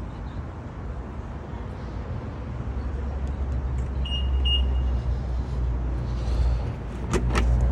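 Low rumble of road traffic, with two short high beeps about four seconds in and two sharp clicks near the end.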